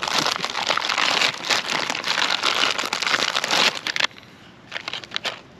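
MRE packaging, a clear plastic bag and stiff brown ration pouches, crinkling and rustling as items are pulled out. The crinkling is dense and loud for about four seconds, then stops, leaving a few brief rustles near the end.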